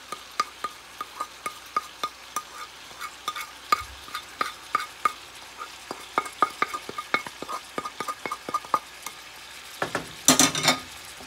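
Wooden spatula scraping and tapping spices off a ceramic plate into a pot of potatoes, a quick irregular run of sharp taps over a faint sizzle. A louder clatter of cookware comes near the end.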